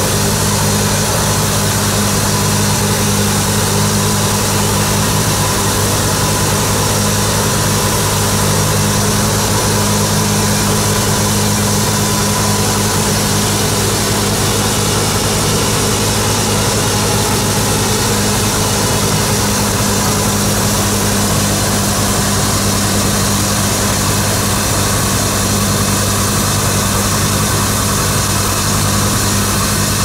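Compact tractor and a tow-behind flail mower's own petrol engine running steadily together, loud and unbroken, while the mower's flails cut through long grass.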